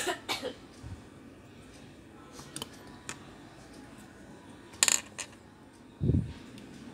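Hands handling a 3.5-inch hard drive and its circuit board. There is a clatter of sharp clicks and taps at the start, a few light ticks, another clatter about five seconds in, and a dull thump a second later.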